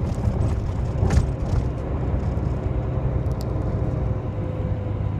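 Steady low rumble of a road vehicle in motion, heard from inside the cabin, with a faint steady hum over it and a single knock about a second in.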